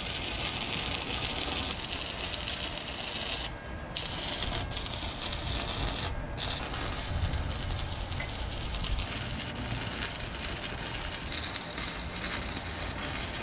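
Arc welding on a steel exhaust pipe joint: the arc crackles and hisses steadily. It breaks off briefly about three and a half seconds in and again about six seconds in.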